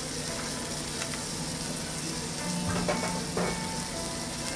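Ishigaki wagyu oyster blade steak sizzling steadily on a hot teppanyaki griddle.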